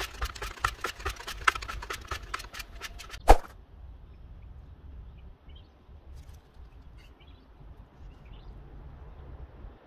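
Quick, irregular clicks and scrapes of a plastic spreader working gel coat on a mixing board, ending in a sharp knock a little over three seconds in. Then it goes quieter, with only faint small squeaks and rustles as the gel coat is spread onto the chip and masking tape is handled.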